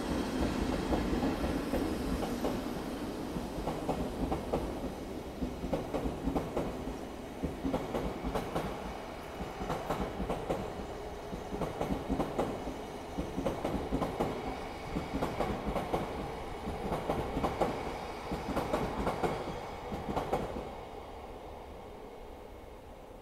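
Train of new, unpowered Odakyu 5000-series cars being hauled past by a locomotive, its wheels clattering over the rail joints in a regular clickety-clack. The clatter fades away about 21 seconds in as the train moves off.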